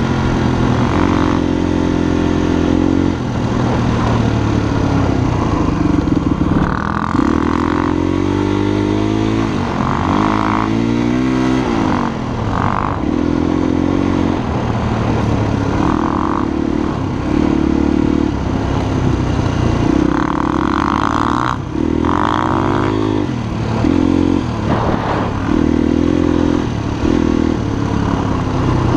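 Honda XLR250 single-cylinder four-stroke enduro engine, heard from the rider's seat, under way. Its pitch climbs repeatedly as the throttle opens and drops back as it closes or shifts gear.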